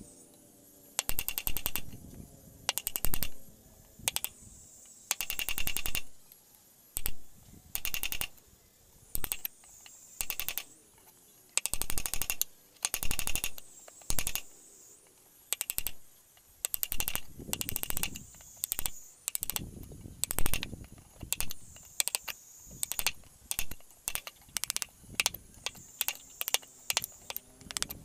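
Steel wood chisel being struck to chop a lock mortise into hardwood, in short bursts of rapid, sharp blows about once a second with brief pauses between.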